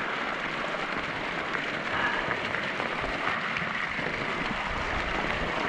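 Waterfall water pouring and pattering steadily onto the hood and shoulders of a polyester rain jacket, an even splashing hiss.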